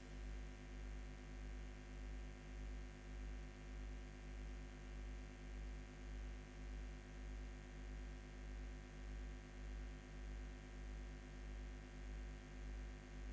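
Steady low electrical hum with a faint hiss from the sound system's microphone channel between prayers, swelling and fading about twice a second.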